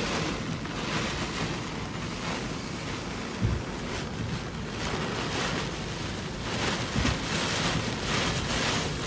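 Storm-force wind and heavy rain in gusts, the wind swelling and easing, with a couple of low thumps of wind buffeting the microphone.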